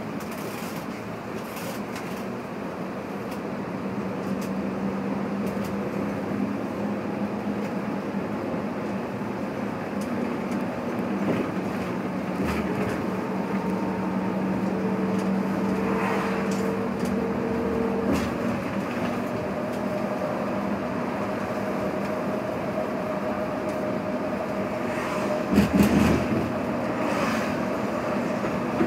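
Steady engine drone and road noise inside a Daewoo bus cruising on an expressway, with a few faint whining tones. Near the end there is a short cluster of heavy thumps and rattles.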